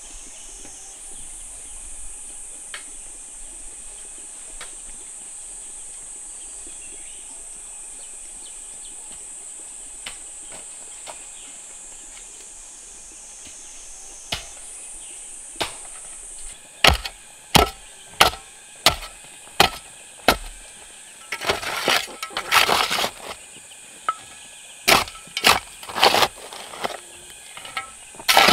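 Insects buzzing steadily in a high, even drone over quiet outdoor ambience. About two-thirds in, a run of sharp knocks starts, one or two a second, with a short rough scraping stretch between them.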